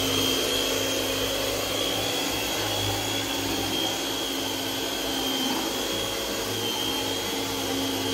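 Simple electric mixer running steadily, its beaters whipping a partly frozen green-corn ice cream base in a large bowl. A steady high whine rides over the motor hum.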